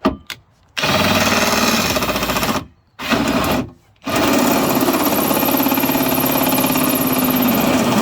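Power drill with a keyed chuck drilling a hole, running in three bursts: a short run about a second in, a brief one around three seconds, then a long steady run from about four seconds. A couple of sharp clicks come just before the first run.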